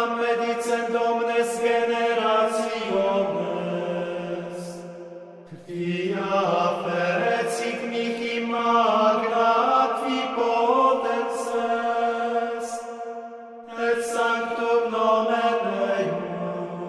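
Background music of sung chant: voices in long held phrases over a sustained low drone note, with short breaths between phrases about five and a half and fourteen seconds in.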